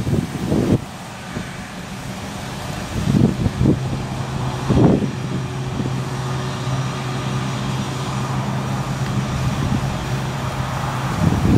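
Boeing 757-200 jet engines running as the airliner rolls past close by, giving a steady low hum and rumble. Gusts of wind buffet the microphone a few times.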